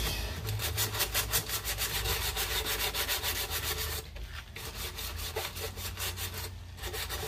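Bronze wool pad scrubbing the metal top of a gas camp stove in rapid back-and-forth strokes, grinding off baked-on grease and crust, with brief pauses about four seconds in and again near six and a half seconds.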